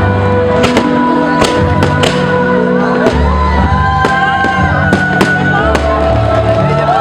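Loud music with a stepping bass line accompanying a fireworks display, with sharp bangs of fireworks bursting at irregular intervals throughout.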